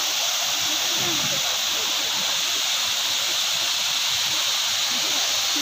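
Water cascading down a stepped concrete weir: a steady, even rushing.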